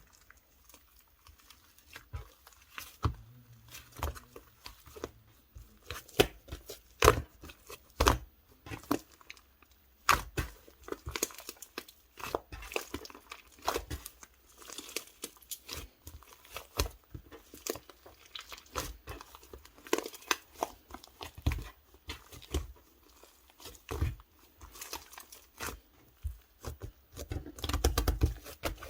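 Hands squeezing and stretching a clay-mixed slime, giving an irregular run of sharp sticky clicks and pops that grows busier and louder near the end.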